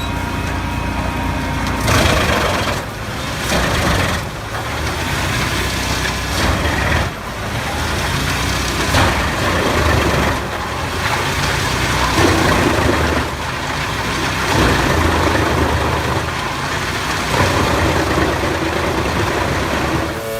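Heizohack mobile wood chipper, its engine running under load, with loud crunching surges every second or two as wood is fed through and chipped.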